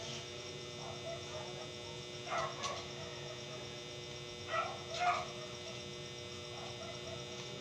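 Arc welding machine humming steadily while switched on and waiting to strike. Two pairs of short yelping calls sound about 2.5 s and 5 s in.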